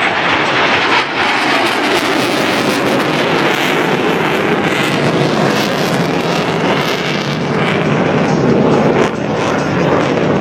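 Loud, steady jet engine noise from an F-16 fighter performing its display.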